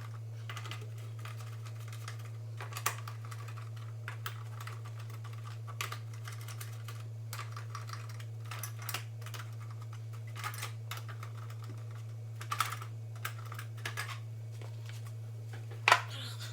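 Irregular light clicks and clinks of a 5/16 wrench working bolts loose on a small engine's carburetor cover, a few in quick clusters and one sharper click near the end, over a steady low hum.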